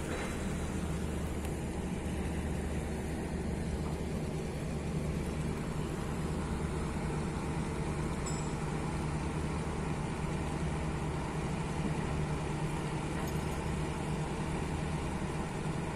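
A moored ship's engine running steadily: a continuous low drone with an even hum.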